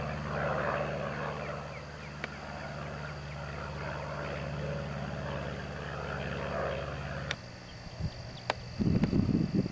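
A light plane's Continental A-65 air-cooled flat-four engine and propeller droning steadily in flight overhead. The drone cuts off suddenly about seven seconds in, followed by a few low, irregular rumbling gusts near the end.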